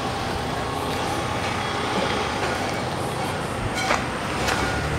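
Steady rush of road traffic on a roadside highway, with two short crunches of footsteps on gravel near the end.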